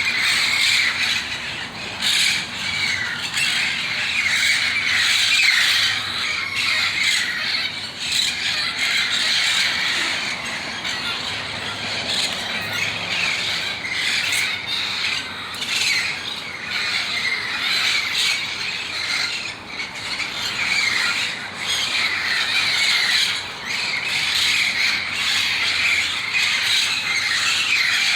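A large flock of feral parrots of several species calling all at once: a dense, continuous chorus of loud squawks and screeches.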